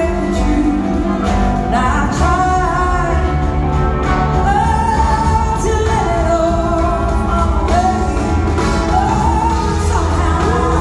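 Live band playing with a woman singing the lead over electric guitar, drums and keyboards, heard from high up in a theatre balcony.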